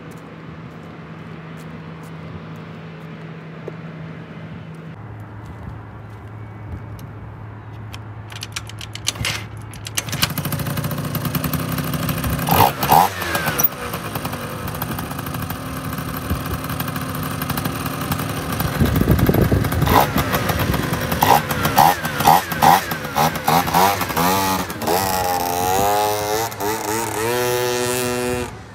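Adly Silverfox scooter's two-stroke engine, fitted with a 70cc big-bore kit and a cheap aftermarket exhaust. It runs quietly at first, grows louder about a third of the way in, and is revved in several short blips. Near the end it accelerates away with rising pitch.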